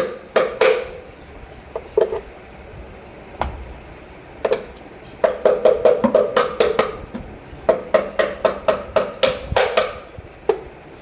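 Quick runs of hollow knocks on a bird breeding box, about four a second, with pauses between the runs: the box being knocked and scraped to clear out the dirt inside.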